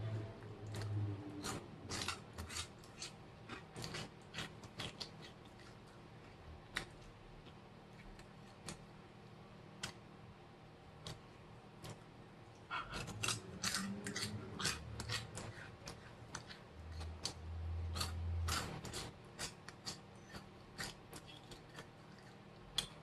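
Close-up chewing of crunchy Flaming Hot Cheetos: sharp, crisp crunches in two bouts, the first at the start and the second a little past halfway, with scattered crunches between. A brief low hum comes twice.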